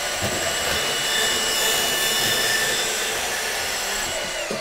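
DeWalt DCS374B 20V MAX cordless deep-cut band saw running at full speed and cutting through 4-inch PVC pipe: a steady motor whine with the rasp of the blade in the plastic. Near the end the blade is through and the motor winds down as the trigger is let go.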